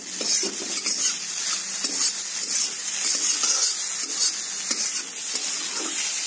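Chopped leafy greens sizzling in hot oil in a kadai, with a steady hiss, while a flat spatula repeatedly scrapes and turns them against the pan.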